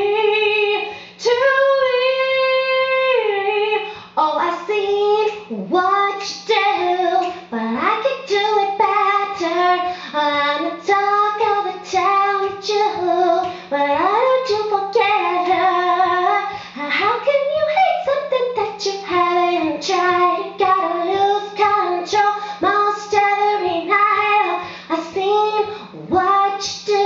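A woman singing solo and unaccompanied into a microphone run through an amplifier, a melodic line of held notes and pitch glides, over a steady low hum.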